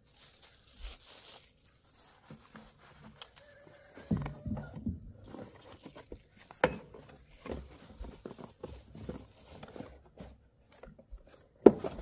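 A cardboard box and its packing being handled and torn open, with crinkling and scattered knocks; the sharpest knocks come about halfway through and shortly before the end.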